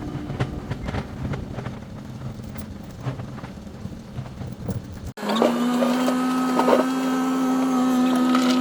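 An engine running: for about five seconds a low rumble with scattered knocks, then, after an abrupt cut, a steady, higher-pitched drone.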